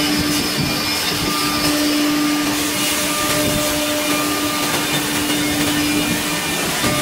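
Nesting CNC router running: a steady, loud rushing drone with a steady hum and fainter higher overtones, like the vacuum and extraction system of a woodworking machine.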